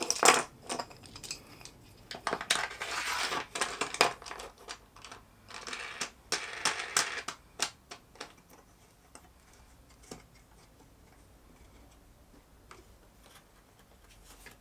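Clicks, knocks and scraping of wooden clamp blocks and metal T-bolts being set in aluminium T-tracks on a plywood table, with busy stretches of clatter and scraping in the first half. After that come only a few faint taps as the clamp's knob is tightened.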